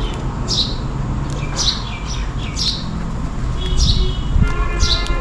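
House sparrows chirping, short downward-sweeping chirps about once a second. A steady pitched hum joins them about three and a half seconds in.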